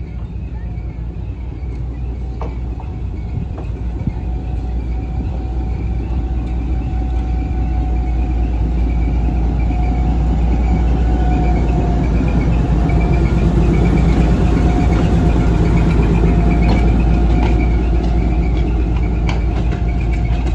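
Lxd2 narrow-gauge diesel-hydraulic shunting locomotive running past at close range. The engine's steady rumble, with a thin whining tone above it, grows louder as it approaches and stays loud as it goes by.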